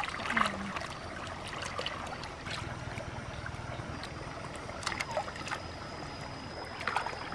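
Water splashing as raw chicken wings are rinsed by hand in a shallow stream, then the steady trickle of the running stream with a few scattered small splashes. A faint high steady tone joins about five seconds in.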